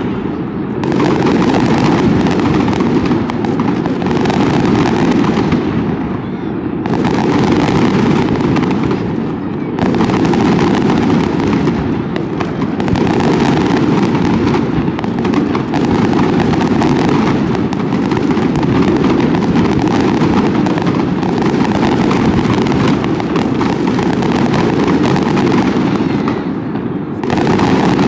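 Aerial fireworks display: a dense, continuous barrage of shells bursting and crackling, with short lulls about six and a half, nine and a half and twenty-seven seconds in.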